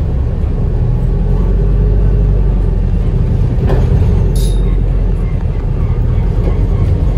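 Interior of a Wright New Routemaster (NB4L) double-decker bus on the move: a steady low drivetrain and road rumble, with a single knock a little after halfway and a brief high hiss just after it.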